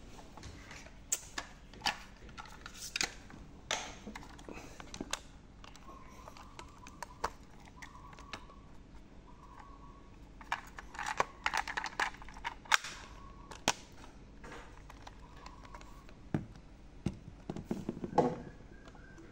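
Sony TPS-L2 Walkman cassette player being handled while a cassette is loaded into it: sharp plastic-and-metal clicks and clatter in several clusters, busiest in the first few seconds, around the middle and near the end.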